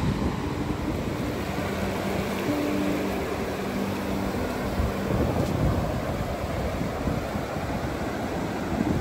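Ocean surf breaking and washing up a sandy beach: a steady rushing noise with a heavy low rumble from wind on the microphone.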